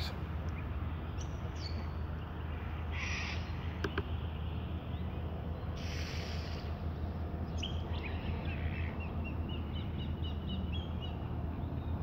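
Wild birds calling around a park pond: scattered short calls, then a run of quick, evenly spaced high chirps in the last few seconds, over a steady low rumble.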